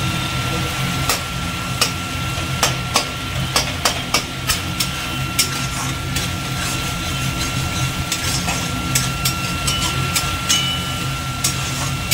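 Flat metal spatula scraping and clinking against an aluminium kadai while stirring a spice paste frying in oil, in irregular sharp knocks, over a steady low hum.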